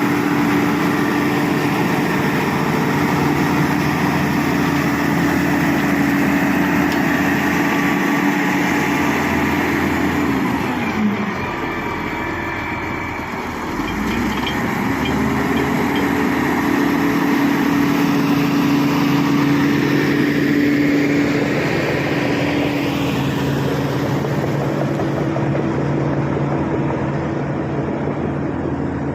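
SD16 bulldozer's diesel engine running hard while pushing, a loud steady drone. About eleven seconds in the engine note sags and it climbs back up by about fifteen seconds.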